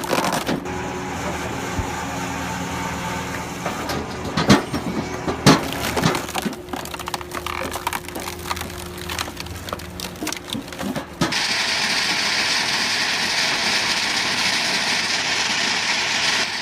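Hydraulic log splitter running with a steady machine hum while logs split with sharp cracks and splintering. About eleven seconds in, this cuts to a steady hissing noise.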